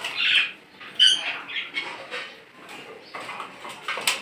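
Caged birds chirping and squeaking in short, scattered calls, with one clear high chirp about a second in.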